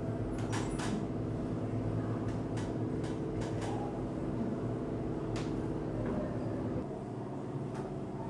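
A steady low machine hum with several short, sharp clicks scattered over it; the hum drops away about seven seconds in.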